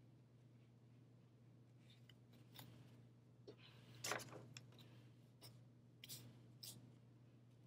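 Faint scratchy rustling and a few light clicks of yarn being threaded over and under the warp strings of a small hand loom. The loudest rustle comes about four seconds in, over a low steady hum.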